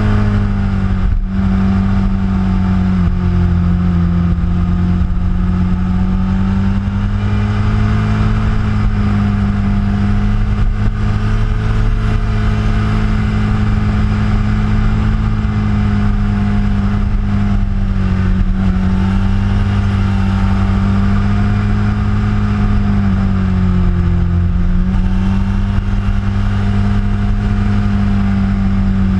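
Motorcycle engine running steadily at cruising revs, heard from on the moving bike, with wind and road noise. The engine note dips briefly about three seconds in and again near the end, then picks back up.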